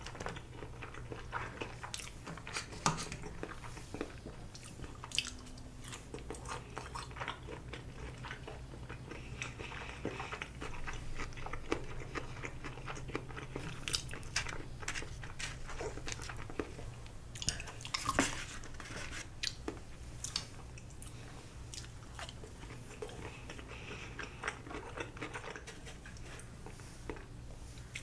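A person chewing and biting sushi close to the microphone, with many small crunches and clicks, over a faint steady low hum.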